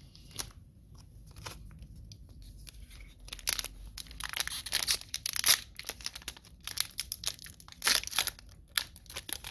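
A trading-card pack wrapper being handled, then torn open and crinkled. A few light rustles and clicks come first, then rapid crackling tearing and crumpling from about three seconds in.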